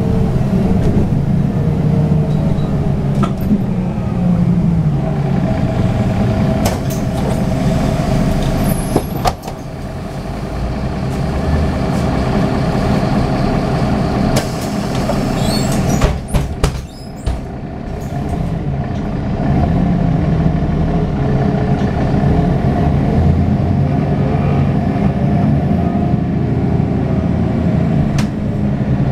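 Mercedes-Benz OM906hLA six-cylinder diesel of a Citaro O530 city bus running under way, heard from inside the cabin. The engine note drops about nine seconds in and then builds again, with a few sharp knocks about sixteen seconds in.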